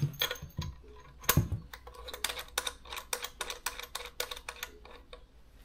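Buttons on a Xiegu G90 transceiver's front panel being pressed to re-run its SWR scan: a string of quick, irregular clicks, the loudest about a second and a half in.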